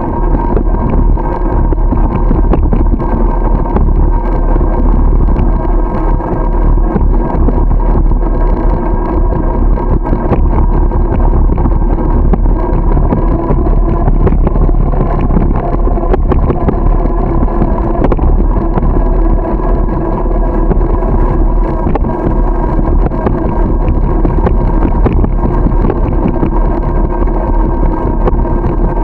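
Wind and road rumble on the microphone of a camera riding along on a moving bicycle: a loud, steady rush with a deep low rumble and a faint constant hum of a few steady tones.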